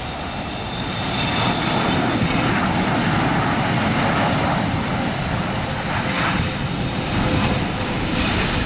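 Jet engines of a Boeing 777-300ER, its GE90 turbofans, on final approach with the gear down: loud, steady jet noise that swells about a second in, with a faint high whine in the first seconds.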